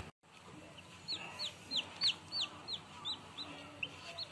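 Newly hatched chicks peeping: a run of short, high peeps, each falling in pitch, about three a second, starting about a second in after a brief gap in the sound.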